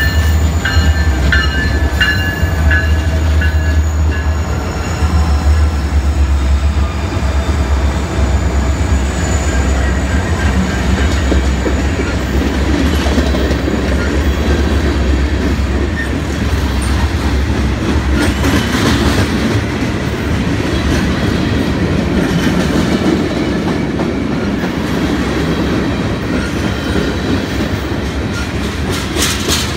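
Diesel freight locomotives passing close by, their engines rumbling deeply for the first several seconds before fading. A string of tank cars follows, steel wheels rolling on the rail, with regular clicks over the rail joints near the end.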